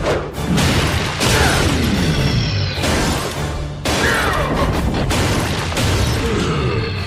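Cartoon action-score music over a robot fight, with crashes and metal impacts. Falling pitch sweeps repeat every couple of seconds.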